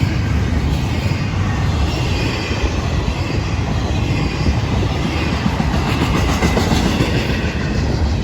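Florida East Coast Railway freight train rolling past at close range: a loud, steady rumble of steel wheels on rail, with a faint high wavering squeal from the wheels.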